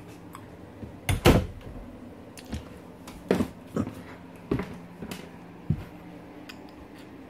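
Footsteps thudding on the RV's floor as someone walks through: about six heavy thumps, the first and loudest about a second in, over a steady low hum.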